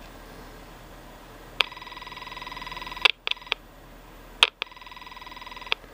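Digital data signal from the inspection camera's cord, picked up with an alligator-clip probe and played through a small Radio Shack amplifier: two buzzy, finely pulsing bursts of a bit over a second each, each starting with a click, with a few clicks between them. It sounds like a phone.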